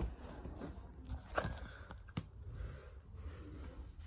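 Soft rubbing and handling noise with a couple of sharp taps, as a cat's fur brushes against the phone and its paws bat at a ribbon toy on carpet.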